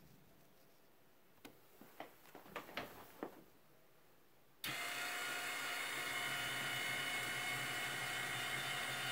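Electric linear actuators of a homemade tilting desk start suddenly about halfway through and run with a steady motor whine as the desktop tilts. A few light knocks come just before.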